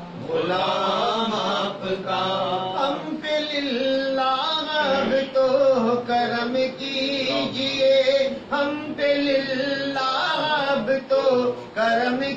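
Devotional chanting of an Urdu naat: a voice sings long melodic phrases that rise and fall over a steady held tone underneath.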